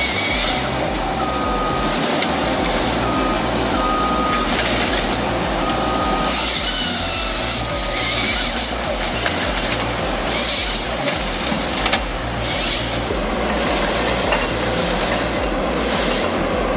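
Heavy diesel logging machinery running steadily, with a short beeping tone that comes and goes during the first few seconds, like a reversing alarm, and several bursts of hissing air.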